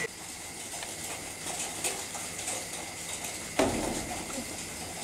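A bucketful of live beetles crawling over one another, a steady rustling full of small clicks and scratches from their shells and legs. A louder knock or scrape comes about three and a half seconds in.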